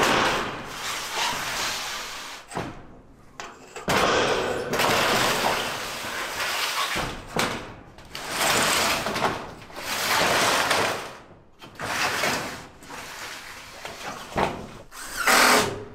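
Sheet-metal roofing panels being handled and slid into place, a run of about six scraping, rattling stretches of a second or two each, the last near the end the loudest.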